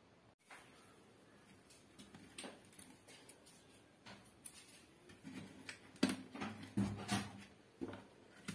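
Scattered light clicks and knocks of hands handling an opened plastic extension socket box and its wiring, with a louder cluster about six to seven seconds in.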